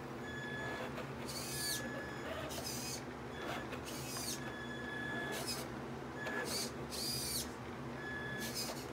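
Electric drive and newly fitted metal-gear steering servo of a Traxxas Slash 2WD RC truck whining in short bursts as it is driven and steered on carpet, some bursts gliding in pitch and several a short steady high whine.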